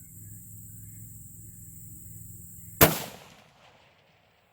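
A single shot from a 16-inch-barrelled AR10 rifle near the end: one sharp crack that fades over about half a second, with a faint steady hum before it.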